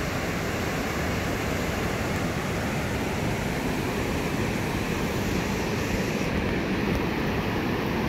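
Stream swollen by typhoon rain, rushing in a steady, unbroken roar of water.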